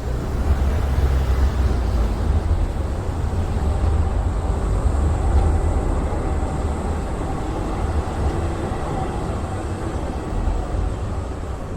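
Low, steady rumble of wind on the Insta360 X4 camera's wind-shielded microphone, swelling in the first half and easing a little toward the end.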